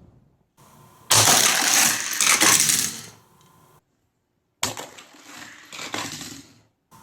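Hard plastic toy playset parts clattering and rattling in two loud bursts, as the launcher fires and the toy car and missiles knock against the plastic track.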